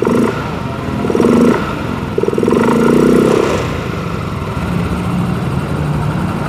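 Yamaha Mio Z scooter's single-cylinder engine blipped on the throttle with its CVT cover off and the belt drive spinning, each blip carrying a rough, rapid rattle from the CVT, the 'kletek-kletek' noise being traced there. After about three and a half seconds it settles to a steadier idle.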